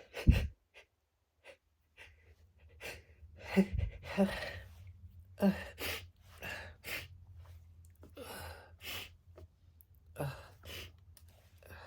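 A woman's sneeze build-up: a sharp short burst just after the start, then a string of breathy gasps and sighs as the sneeze stays stuck and won't come out.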